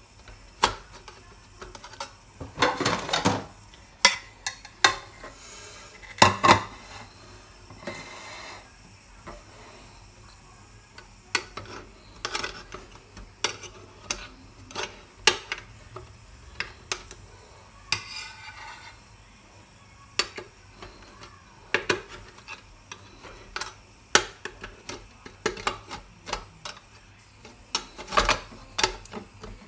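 A metal spoon scraping and knocking against a stainless steel idli stand as steamed idlis are prised loose from their moulds, in irregular clinks with a few longer scrapes.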